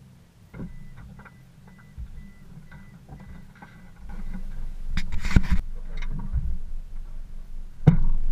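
Low rumble with scattered knocks and clicks; it grows louder about halfway through, with a cluster of clunks soon after and a sharp knock near the end.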